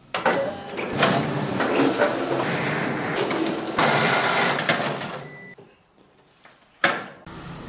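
Konica Minolta bizhub copier and booklet finisher running, rollers feeding paper through with a rapid rattle of clicks and knocks. The noise dies away near the end, then one sharp knock.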